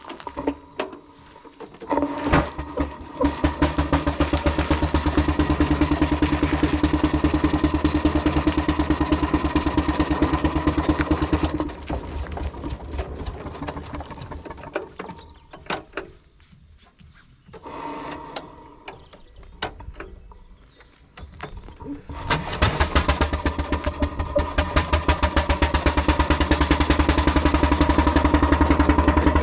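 Miniature coal-fired steam traction engine running under way with a fast, even beat. It drops away for about ten seconds midway, then starts up again.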